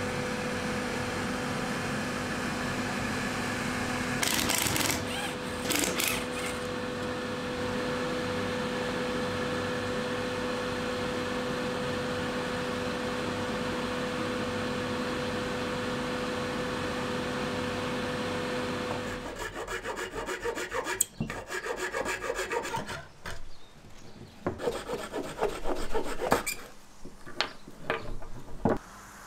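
A workshop machine's steady motor drone with a hum, with a couple of short hissing surges about four to six seconds in, cuts off about nineteen seconds in. Then comes a run of irregular wooden knocks, clacks and rubbing as the CNC-carved wooden spoons are pressed and worked out of their blank.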